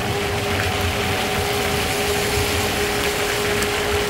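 A vehicle running steadily: an even rushing noise with a constant mid-pitched hum.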